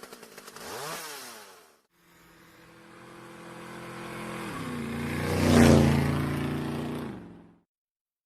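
Motorcycle engine revved twice in the first two seconds. Then a motorcycle passes by, growing louder, dropping in pitch as it goes past about five seconds in, and fading away.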